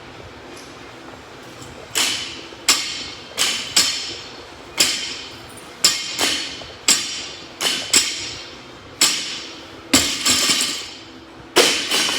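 Loaded barbell clanking down again and again during workout reps: about fifteen sharp metal impacts, each with a brief ring, coming irregularly a second or less apart.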